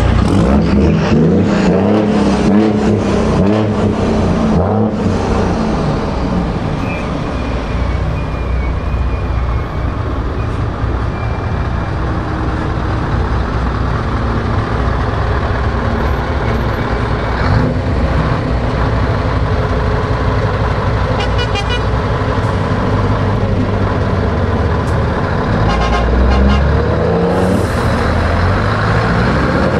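Heavy trucks rolling slowly past in queued traffic, their diesel engines running with a deep, steady note. Near the end the Scania Super 164L's 16-litre V8 diesel pulls past close by and swells louder.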